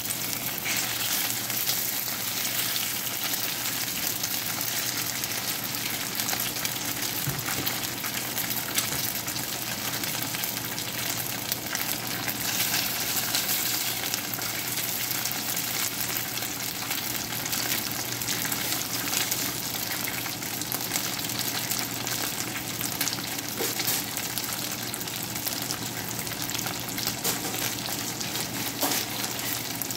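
Cubes of homemade steamed rice cake frying in oil in a cast iron skillet, a steady sizzle thick with fine crackles.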